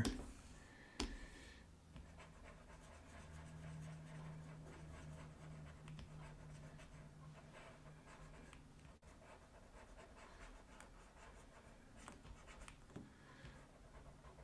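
Faint scratching of a stylus nib on a drawing tablet as lines are drawn, in short repeated strokes, with a faint low hum for a few seconds.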